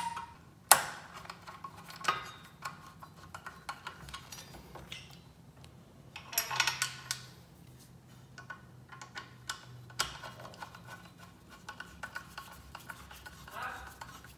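Screwdriver turning bolts into the steel foot bracket of a Concept2 Model D rowing machine: small metallic clicks and scrapes as the bolts are threaded in loosely, with a sharp click about a second in.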